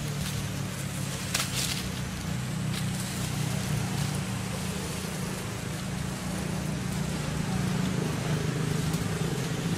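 A steady low motor hum, with a brief crackle about a second and a half in.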